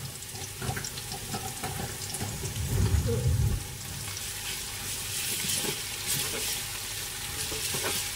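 Shredded lemongrass stalks sizzling and crackling in hot oil in a large aluminium pot as they fry until crisp and fragrant, stirred with a black spatula. There is a louder low bump about three seconds in.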